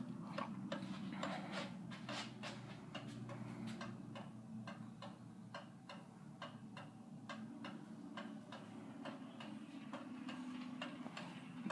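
Monte Carlo ceiling fan running in reverse at medium speed: a low steady hum with an even, rhythmic ticking about three times a second.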